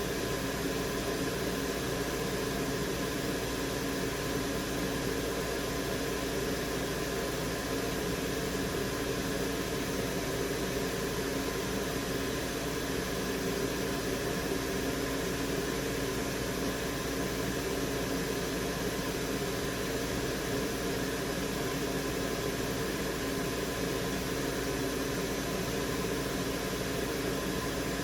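Steady fan-like whir and hiss, with a few faint steady tones on top.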